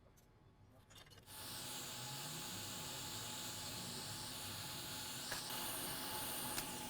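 Hot air rework station blowing a steady hiss of hot air, switched on about a second in, desoldering a chip from a laptop motherboard. A couple of faint ticks near the end.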